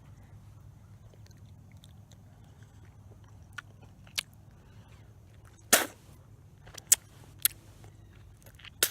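A few sharp, irregular clicks or snaps over a low steady background hum, the loudest a little under six seconds in.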